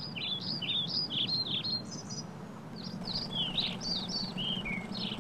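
Songbirds chirping and twittering in quick runs of short high notes, with a steady low hum underneath.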